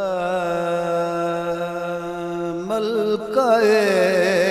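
A man singing a manqabat into a microphone: he holds a long wavering note, then moves into a more ornamented phrase a little past halfway. A steady drone sounds under the voice.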